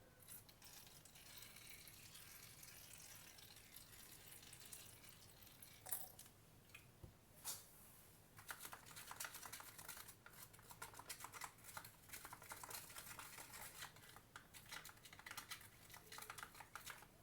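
Faint stirring in a small container of slime activator (baking soda and contact lens solution): a couple of single clicks, then from about halfway a quick run of light ticks and scrapes as the utensil works through the liquid.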